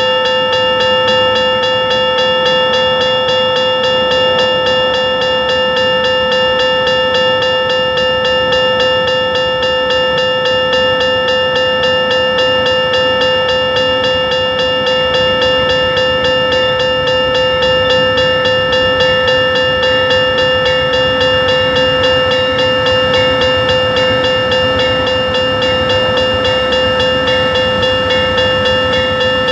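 Railroad grade-crossing warning bell ringing in rapid, even strikes without a break, loud and unchanging: the crossing signal is activated for an approaching train. In the second half an Amtrak passenger train's low rumble grows faintly under the bell.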